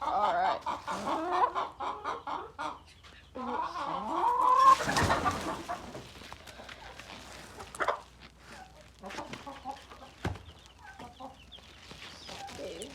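Chickens clucking and calling, loudest and busiest in the first five seconds, then quieter, scattered clucks.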